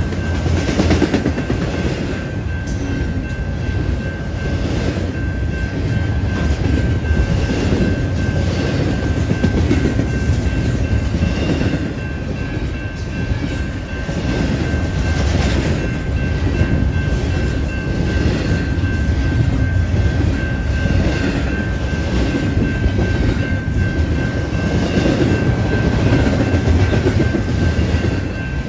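Double-stack intermodal freight train's well cars rolling past: a steady low rumble of steel wheels on rail with a regular clickety-clack about once a second as wheel sets cross rail joints, and a thin high whine over it.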